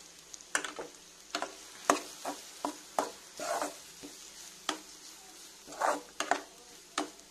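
Steel spoon scraping and tapping against a metal kadai in irregular strokes, about one or two a second, as a grated-coconut mixture is stirred in hot oil, with a faint sizzle underneath. The mixture is being sautéed lightly so it loses its raw taste.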